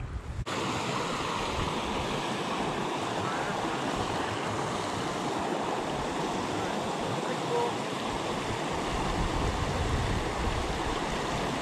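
Shallow mountain stream rushing steadily over rocks through a small riffle.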